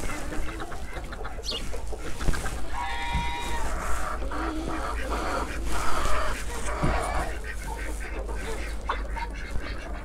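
Mixed farmyard poultry flock calling while feeding: chickens clucking, with one drawn-out pitched call about three seconds in.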